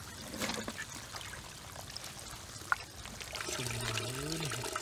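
Water trickling and pouring, with scattered small clicks and splashes; a low voice comes in over it in the last second or so.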